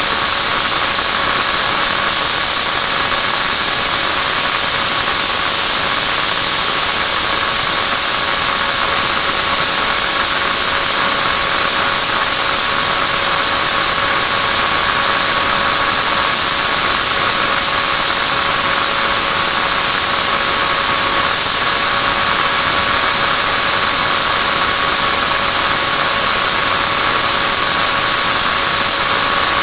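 Electric angle grinder running steadily with a high-pitched whine while it grinds the inside edge of a metal ring held against it, wearing the ring down a little at a time.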